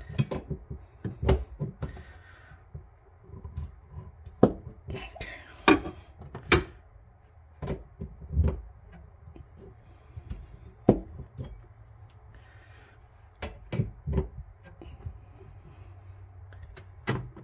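Irregular knocks, taps and clicks of hands and fittings working in a cramped sink cabinet as a faucet supply line is twisted and tightened onto its connection.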